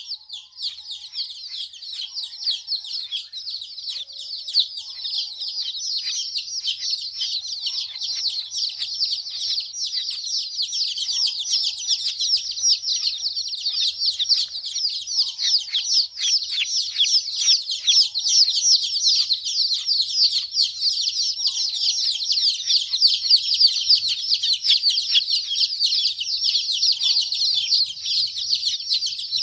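A crowd of baby chicks peeping nonstop. Many high, falling cheeps overlap into a dense, continuous chorus.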